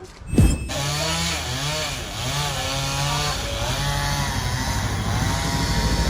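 Two-stroke chainsaw starting up under a second in and then running, its revs rising and falling as it cuts a tree.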